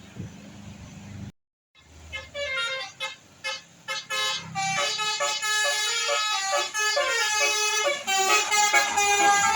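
Tour bus 'telolet' multi-tone air horn playing a quick tune, several notes sounding together and stepping from note to note, starting about two seconds in after a low rumble and a brief gap.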